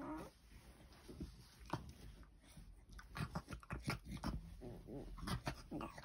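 Beagle making pig-like grunting noises as it squirms on its back, unable to get comfortable: a short whining groan at the start, then a run of quick grunts in the second half.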